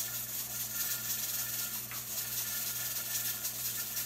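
Weighted pressure regulator on an All American pressure canner rocking and hissing steam in a steady rattle, the sign that the canner has reached its 10 pounds of pressure. A steady low hum runs underneath.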